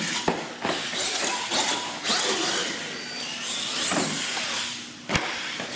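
Electric R/C monster truck's motor whining and revving as it drives and jumps over ramps, its tyres scrabbling on concrete, with a few sharp knocks from landings: two just after the start and one near the end.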